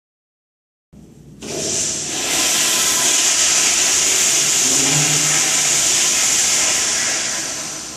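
Toilet flushing: a loud rush of water that starts about a second and a half in, holds steady, and eases off near the end.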